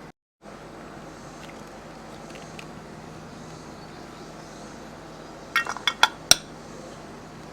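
A quick cluster of sharp metallic clinks, five or six in about a second, from hand tools or brake hardware being handled, about three-quarters of the way in, the last one the loudest. Under it is a steady low hum, broken by a brief dropout right at the start.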